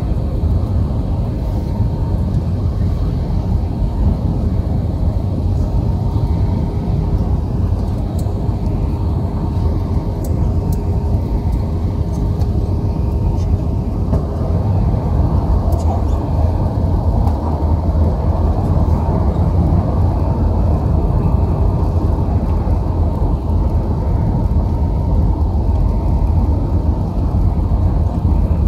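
Cabin noise inside an Airbus A320-214 in flight: a steady low rumble of airflow and its CFM56-5B engines, with a faint steady hum over it.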